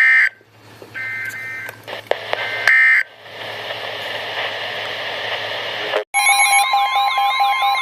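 NOAA Weather Radio Emergency Alert System end-of-message data bursts: three short, shrill two-tone digital squawks about a second apart, closing the warning broadcast. Radio hiss with a low hum follows. About six seconds in, a loud electronic alert alarm starts, a warbling siren over a steady tone.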